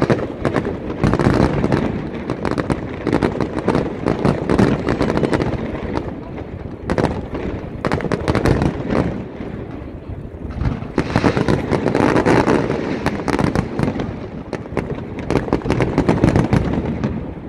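Aerial fireworks display: a continuous barrage of shell bursts with rapid overlapping bangs and crackling. It thins briefly about ten seconds in, then grows heavier again.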